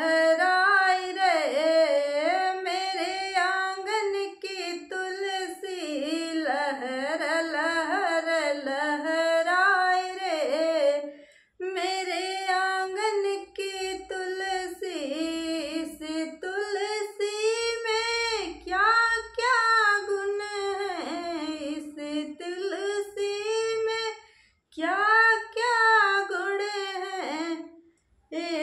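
A woman singing a Hindi devotional folk song to Tulsi (holy basil) solo, with no accompaniment, in long held and bending phrases. She breaks off briefly about a third of the way in and twice near the end.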